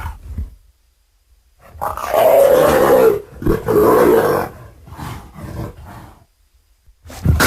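Megalosaurus dinosaur roar sound effect, layered from stock dragon roars and big-cat sounds such as jaguar, tiger and leopard. A brief growl opens it. About two seconds in comes a long loud roar with a short break in the middle, trailing into quieter growls. Another roar starts near the end.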